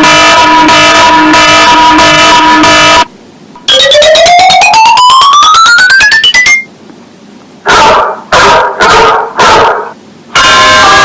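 iPhone alarm tones played back extremely loud and distorted, one after another. First comes a pulsing electronic alarm tone, then a quick run of rising electronic notes, then about five recorded dog barks, and a new chiming tone starts near the end.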